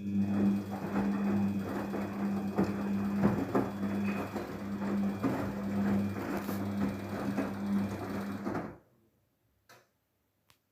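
Daewoo DWD-FT1013 washing machine's drain pump running with a steady hum while water gurgles through it. It cuts off abruptly after about nine seconds.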